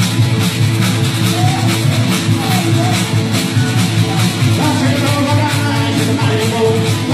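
Live rock-and-roll band playing electric and acoustic guitars over a steady beat.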